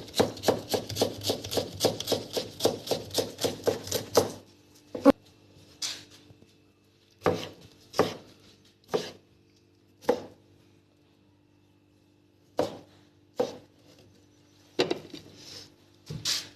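Knife chopping on a cutting board: a fast, even run of about four chops a second for the first four seconds, then single, slower chops spaced a second or more apart.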